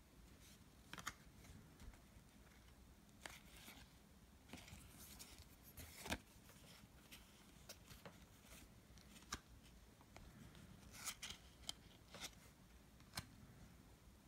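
Faint handling of trading cards: soft rustles and a scattering of light clicks and slides as the cards are flipped through one by one.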